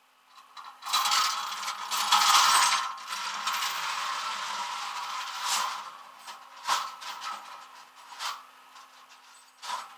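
Tow chain and metal hooks clattering and scraping on the steel deck of a flatbed tow truck for several seconds, then a few separate sharp metallic clinks.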